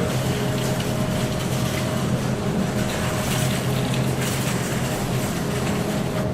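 Grocery store freezer-aisle ambience: a steady hum from the refrigerated freezer cases, with scattered small knocks and rustles from the store.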